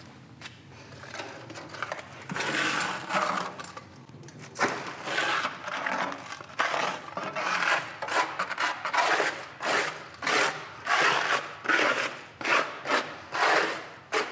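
Metal lathe chips being scooped by gloved hands out of the lathe's steel chip pan, a rattling clatter of swarf in repeated scoops about once a second. The scooping gets busier and louder after about four and a half seconds.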